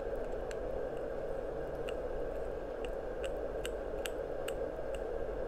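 Small plastic nail-glitter pots being handled, giving scattered light clicks about once or twice a second over a steady background hum.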